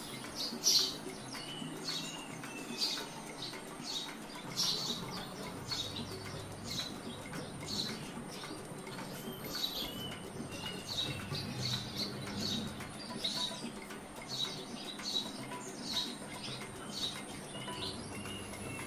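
Small birds chirping in short, high notes, about one a second, with a faint steady high-pitched tone behind them.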